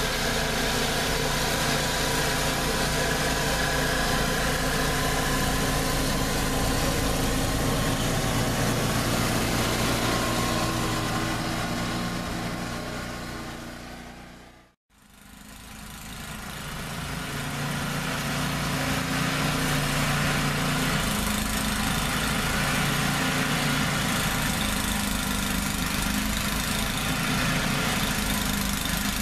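Tecumseh HM80 single-cylinder engine of a 1989 Toro 824 snowblower running steadily under load. The sound fades to silence and back again about halfway through.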